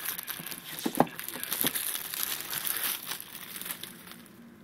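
Clear plastic shrink-wrap crinkling and tearing as it is peeled off a laptop's retail box, with the sharpest crackle about a second in, fading away near the end.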